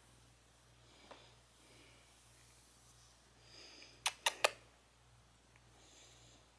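A domestic cat purring faintly as it is petted, a low steady rumble, with soft rustles of a hand stroking its fur. About four seconds in come three quick sharp clicks, the loudest sound in the stretch.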